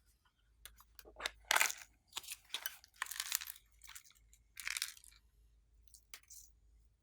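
Glossy slime being squished and stretched by hand, giving irregular bursts of crackling and popping.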